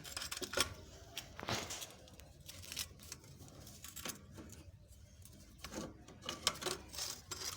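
Scattered metal clicks and clinks of hand tools, a wheel spanner among them, being worked on a car wheel's nuts during a tyre change.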